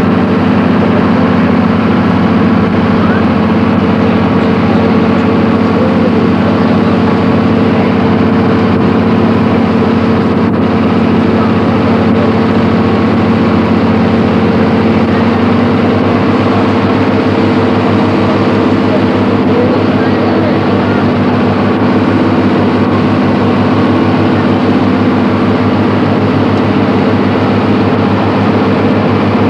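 A boat's engine running steadily, heard from on board as a loud, even drone, its pitch rising slightly about halfway through.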